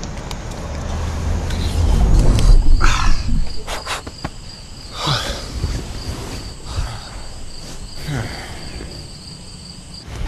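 A deep whooshing rumble, then crickets chirping steadily as night falls, crossed by a few swishing sweeps.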